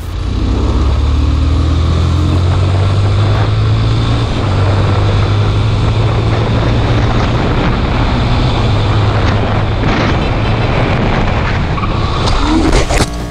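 Motorcycle engine running steadily at road speed, heard from the rider's own bike together with dense wind and road noise. A brief rising whine comes in near the end.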